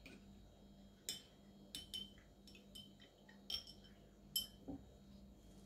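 Faint, scattered light clicks and ticks, about six over a few seconds, from a stiff sheet of black card being picked up and handled.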